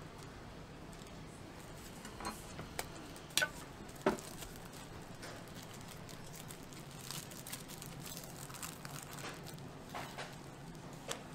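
Scattered light clicks, taps and plastic rustle of dalgona sugar candies being handled in plastic sleeves on a counter beside a metal tin, over a steady low hum. Two sharp knocks a few seconds in are the loudest, with softer ticks later.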